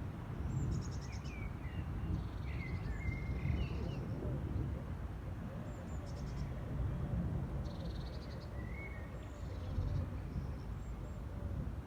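Small birds chirping, with several short, fast trills, over a steady low rumble.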